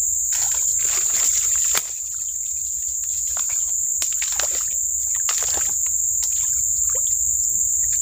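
Footsteps crunching through dry leaf litter and brushing past undergrowth, in irregular bursts, over a steady high-pitched insect drone.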